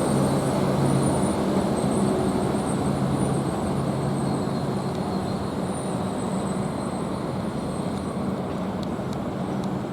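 Train running by on the line, a steady rumbling drone with a low hum and a faint high whistle that slowly fades as it moves off; a few sharp ticks near the end.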